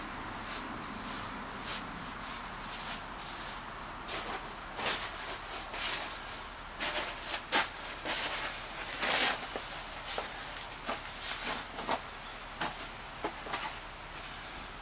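Footsteps crunching on gravel with wooden boards being handled: irregular crunches and short knocks, busiest in the middle.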